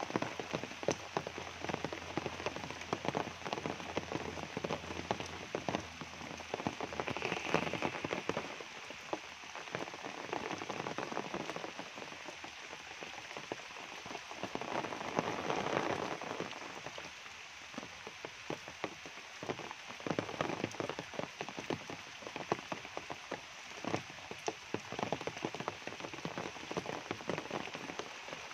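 Steady rain falling on leaves and wet ground, with dense close patter and drips; it swells a little louder for a couple of seconds about halfway through.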